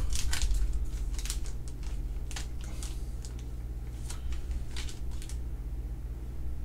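Thick clear plastic card holders clicking and tapping against each other as they are handled, in irregular small clicks that come thickest near the start and again around the middle, over a low steady hum.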